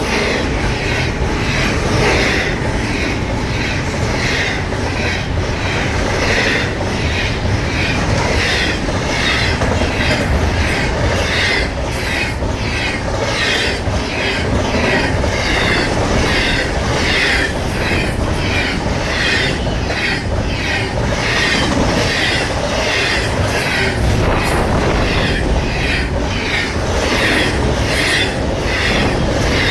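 Intermodal freight train's cars rolling past, the wheels clacking over rail joints in a steady, even rhythm over a continuous rumble.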